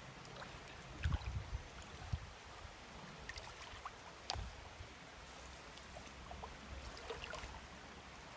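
Faint river water trickling and gurgling, with small splashes and drips. A few low bumps come about a second in.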